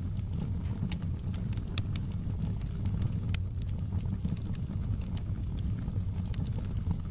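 Wood fire burning in a fireplace: a steady low rumble of flames with scattered sharp crackles and pops, one sharper snap about three seconds in.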